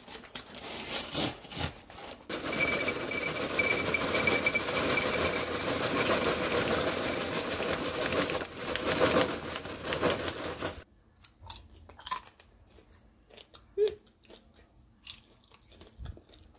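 Popcorn being tipped into a ceramic bowl, a dense rustling rattle of kernels lasting about eight seconds that cuts off suddenly, then a few light clicks.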